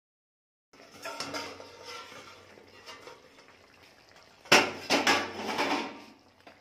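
Metal kitchenware being handled: scattered light clinks and clattering, then one sharp, loud metallic clank about four and a half seconds in, followed by a few more knocks and rattling.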